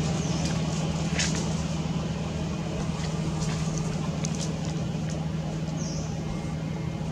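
A motor vehicle engine idling with a steady low hum, with a few faint short high chirps and clicks over it.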